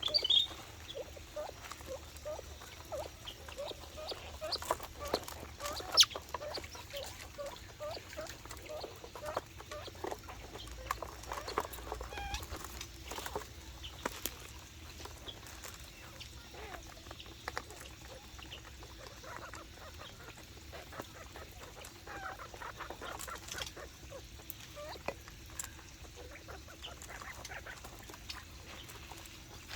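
Aviary birds calling softly, with a string of short, low, repeated calls over the first few seconds, amid many small clicks and chirps while they are being fed.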